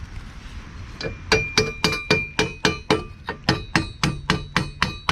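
Hammer striking metal in rapid, even blows, about four a second, each with a bright metallic ring. They start about a second in. It is driving a rod into a drilled hole.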